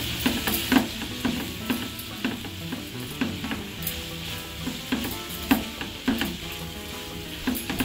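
Sliced onions and green chillies sizzling as they fry in oil in a metal pan, with a spatula stirring them and repeatedly scraping and tapping the pan. This is the stage where turmeric is being mixed into the fried onions.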